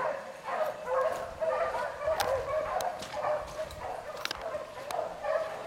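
A pack of beagles in full cry running a rabbit: many hounds baying and yipping at once, overlapping without a break, with a few sharp clicks mixed in.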